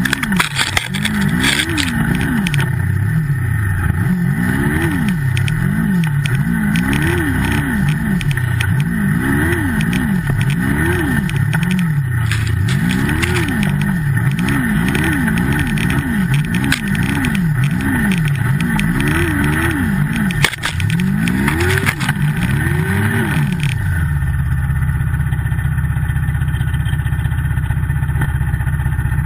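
Turbocharged Yamaha snowmobile engine revved up and down over and over, about once a second, as the sled is worked through deep powder. About 24 seconds in the revving stops and the engine settles to a steady low idle.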